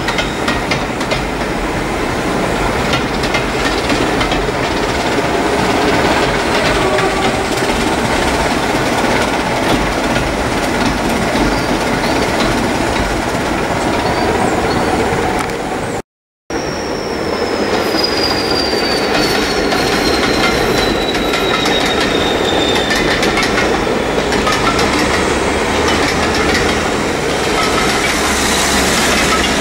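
Heritage diesel-hauled passenger train rolling across a steel girder railway bridge, a steady clatter of wheels on the rails. The sound drops out for a moment about halfway through, and after that a thin, high wheel squeal slides slowly down in pitch over several seconds.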